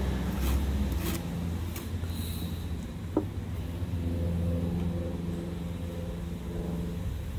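A vehicle engine idling with a steady low rumble, under light scraping strokes of a spatula spreading repair paste over a muffler.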